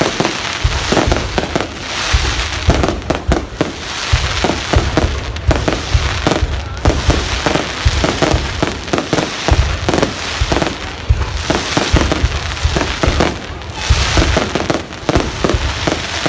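Fireworks display: a dense, continuous barrage of shells bursting, many loud bangs a second with crackling in between, rising and falling in waves.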